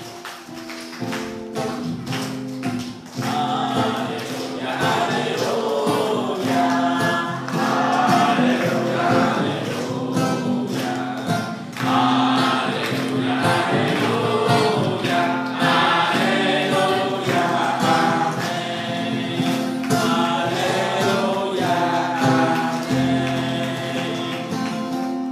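A congregation singing a gospel worship song together, accompanied by acoustic guitar, with rhythmic hand clapping.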